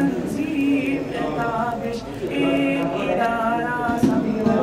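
Background music: unaccompanied vocal singing with long held notes.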